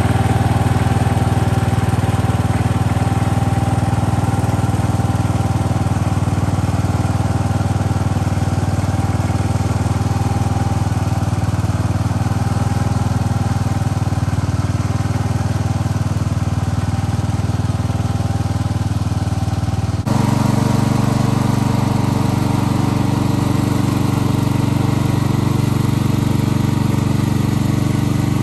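The original 14-horsepower single-cylinder engine of a 52-year-old garden tractor running steadily under load as it tows a heavy trailer of firewood. About two-thirds of the way through, the sound changes abruptly to a louder, deeper engine note with a slight regular pulsing.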